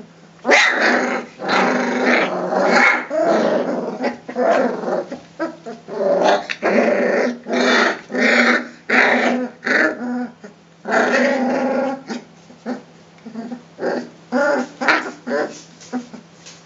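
Three-week-old Rhodesian Ridgeback puppies play-fighting, growling at each other in a quick run of short growls, with a brief pause about ten seconds in.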